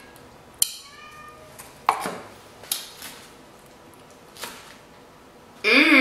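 Sharp clicks and light rattling of a clear plastic salad container and a fork as lettuce is picked out of it, about four separate clicks spread over the first few seconds. Near the end comes the loudest sound, a brief voiced hum.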